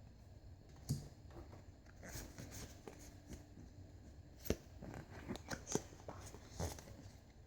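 Faint crinkling and scattered clicks of Pokémon trading cards and a foil booster pack being handled, with a few sharper ticks about a second in and midway through.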